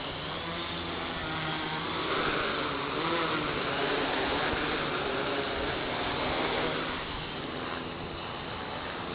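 Buzzing of a DJI F450 quadcopter's four 1100 kV brushless motors spinning 10x4.7 props, its pitch wavering as the motors speed up and slow down to hold it steady. The buzz grows louder about two seconds in as the quadcopter comes close, then eases off again near the end.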